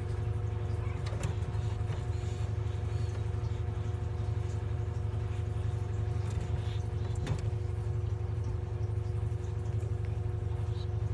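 Steady low machine hum with a few constant tones above it, like a motor or pump running, and a couple of faint clicks.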